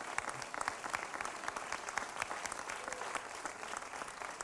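An audience applauding: many hands clapping at an even level.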